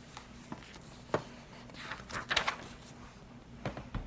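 A few light knocks and rustles of a picture book being handled and opened, with a sharper click about a second in.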